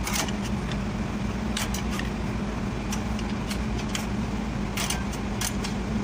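Scattered sharp metal clicks and taps of a screwdriver and drum-brake parts as a truck's rear brake shoe is pried off its anchor. A steady low hum runs underneath.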